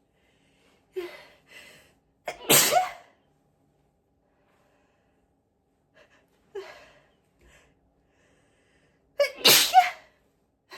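Two loud, high-pitched 'apchhee' sneezes about seven seconds apart, each preceded by a couple of short gasping in-breaths as the sneeze builds.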